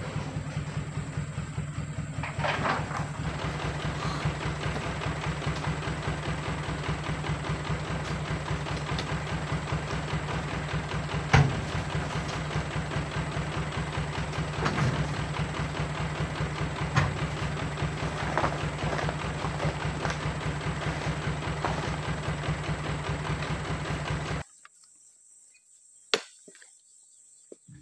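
Truck's diesel engine idling with a steady low pulsing hum. A few heavy thuds sound over it as oil palm fruit bunches are pitched into the steel truck bed. Near the end the engine sound cuts off and it goes quiet.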